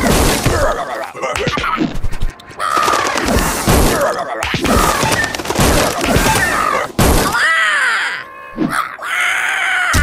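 A busy run of cartoon sound effects: repeated thuds, cracks and crashing impacts, with a few short pitched squeals that rise and fall about three quarters of the way through.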